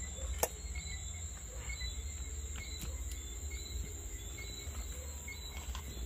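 Crickets trilling in a steady high drone over a low steady rumble, with one sharp click about half a second in.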